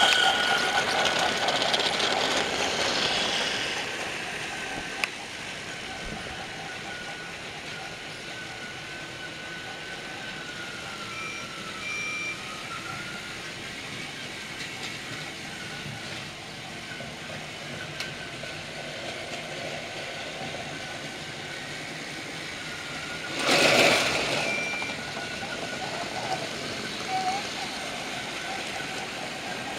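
Battery-powered Trackmaster toy train engines running on plastic track: a steady electric motor whine that wavers in pitch, loudest for the first few seconds as an engine passes close. A few brief high beeps sound, and a short, loud rushing noise cuts in about four-fifths of the way through.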